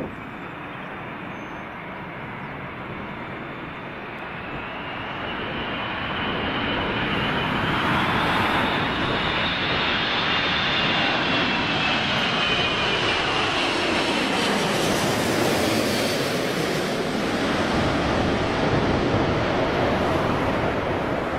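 Airbus A380's four turbofan engines on low final approach, passing overhead. The jet noise swells over the first several seconds and then stays loud, with a high fan whine that falls in pitch as the airliner goes over.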